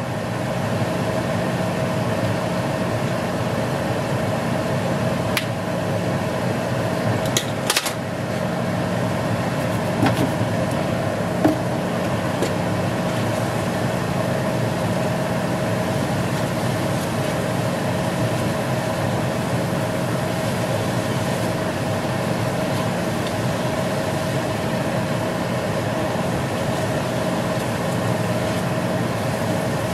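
Chicken pieces frying in a skillet with a steady sizzle over a steady low hum. A few sharp taps of a spatula against the pan, a cluster about eight seconds in.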